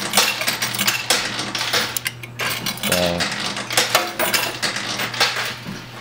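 Metal coins clinking and clattering in an arcade coin pusher as they drop onto the playfield and the pusher shelf shoves the pile, many quick irregular clicks over a low steady hum.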